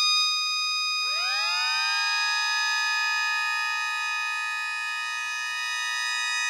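Hobbyist-built mini sirens sounding. One siren is already at full speed on a steady high tone. A second, lower tone winds up about a second in, and then both hold a steady two-note chord.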